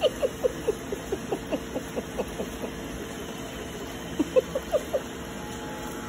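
Roomba robot vacuum running with a steady mechanical hum, and over it a rapid series of short, high squeaks, about four a second, for the first few seconds and again briefly after about four seconds in.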